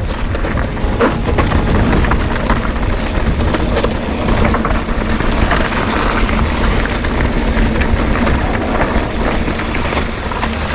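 Mountain bike descending a dirt trail: steady wind rush over the microphone with tyres rolling over rough ground and many small clattering knocks from the bike.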